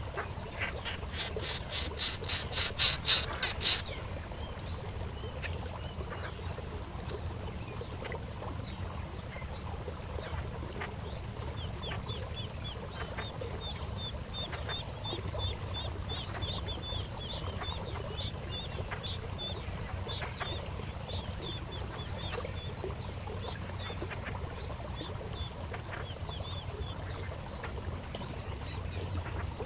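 Outdoor wildlife sounds: a steady high insect drone throughout, a loud run of about a dozen rapid high-pitched pulses in the first few seconds, then a long series of faint, short, high chirps repeated for over ten seconds.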